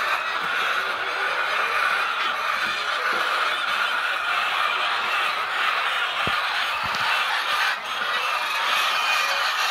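Dense, continuous chorus of many fowl calling at once, overlapping honks and clucks from a large flock.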